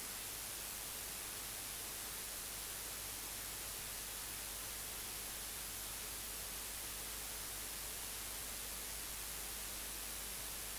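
Steady electronic hiss with a faint low hum from the sound system or recording chain, with no voice and no other events.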